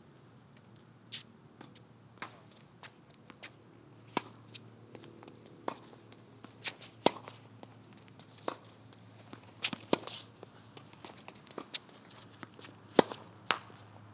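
Tennis balls being hit back and forth: sharp pops of racquet strings striking the ball and the ball bouncing on a hard court, at irregular intervals, with lighter footstep scuffs between.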